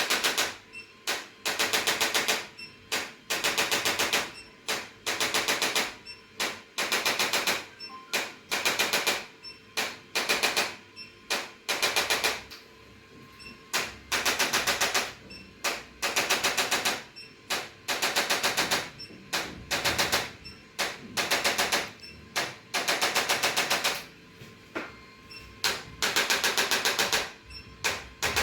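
Rapid mechanical tapping in repeated bursts of about eight to ten strokes a second, each burst lasting around a second with short pauses between.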